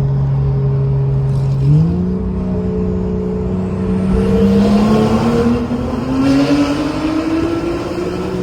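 Turbocharged car engine under acceleration, with turbo whistle. Its pitch steps up sharply a little under two seconds in, then climbs steadily.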